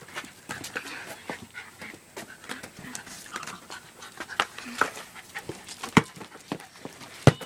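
Dog panting hard during rough play, with a few sharp knocks, the loudest about six seconds and seven seconds in.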